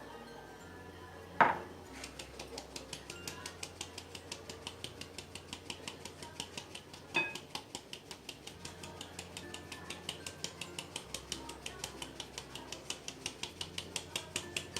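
Hand whisk beating cake batter in a bowl, the wires clicking against the bowl in a steady rhythm of about four to five strokes a second. A louder knock comes about a second and a half in, and another about seven seconds in.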